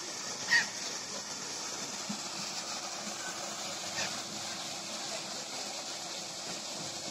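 Steady rushing splash of a small artificial waterfall pouring into a pond, with one brief sharp sound about half a second in.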